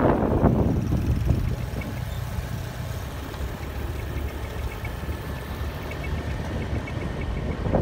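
A motor vehicle engine running at low road speed as a steady low rumble. Wind buffets the microphone loudly at the start, eases after about a second, and picks up again near the end.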